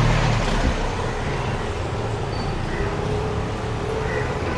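City street traffic: engines running and road noise, with a vehicle's low engine rumble loudest in the first second as it passes close.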